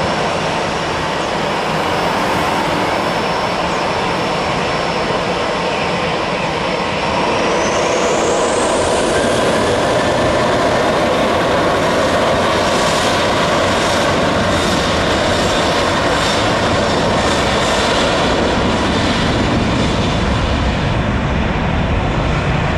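Boeing 737's twin turbofan jet engines spooling up for the takeoff roll: a whine rises in pitch about seven seconds in as the roar grows louder, then holds as a steady loud jet roar at takeoff power.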